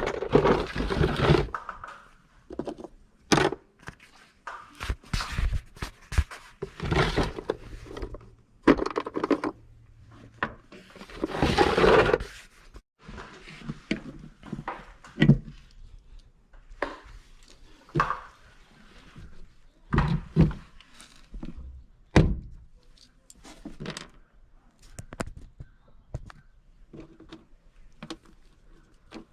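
Irregular knocks, thunks and scraping of hands and tools on HVAC equipment while a condensate drain-pan float switch is installed and wired, with a longer scraping stretch about twelve seconds in.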